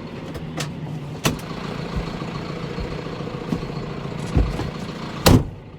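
Tractor engine running steadily, with a few clicks and low knocks and one sharp knock about five seconds in, after which it sounds quieter.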